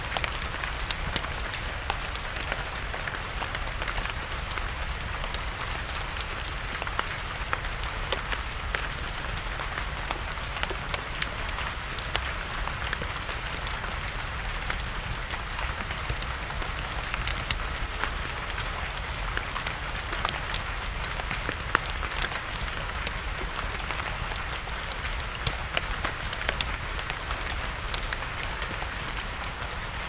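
Steady rain falling, with scattered sharp pops and crackles of a wood campfire.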